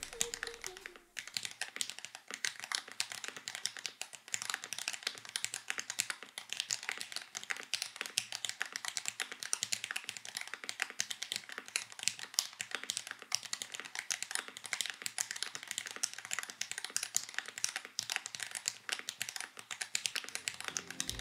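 Fast touch-typing on a custom mechanical keyboard: a dense, steady run of keystroke clacks with a creamy-ish clack.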